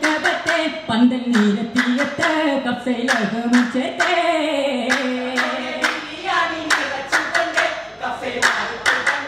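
Vattappattu, a Kerala Mappila wedding song: a group of young men singing in unison without instruments, with sharp hand claps in a quick rhythm, about two to three a second.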